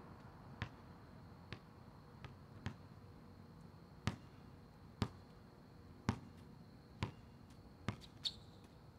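Basketball dribbled on an asphalt outdoor court, bouncing unevenly about once a second.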